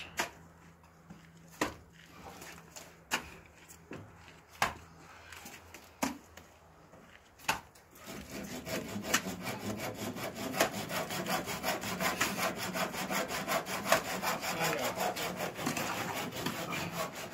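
Hand plastering with cement mortar: single wet knocks about every second and a half as mortar is scooped from a plastic tub and thrown onto the wall. From about eight seconds in comes a fast rhythmic scraping, about four to five strokes a second, as the fresh render is rubbed over the wall.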